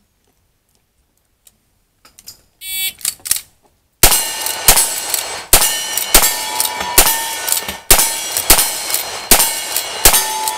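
Lever-action rifle fired in a steady string, a shot about every 0.8 seconds beginning about four seconds in, each shot followed by the ring of steel targets being hit. A short beep comes about a second before the first shot.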